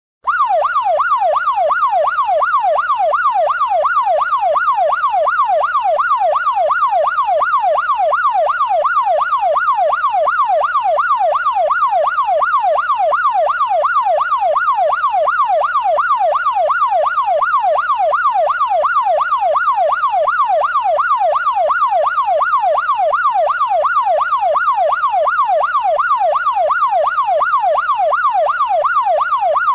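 Electronic police siren in a fast yelp, its pitch sweeping up and down about three times a second without a break. It cuts out for a split second at the very start, then runs on unchanged.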